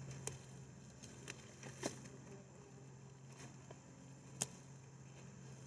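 Faint rustling and scraping of a gloved hand digging through loose soil and mulch inside a tire, with a few light ticks and snaps; the sharpest comes about four and a half seconds in.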